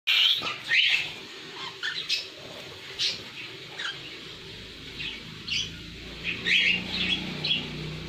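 Cockatiels in an aviary giving short, high chirping calls, many in a row.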